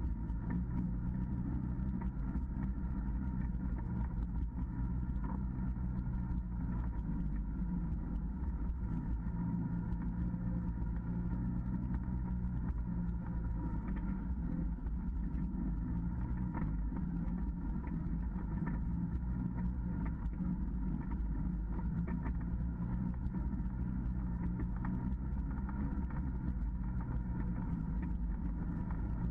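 Side-by-side UTV engine running at a steady low speed, a continuous low drone, with scattered small knocks and rattles.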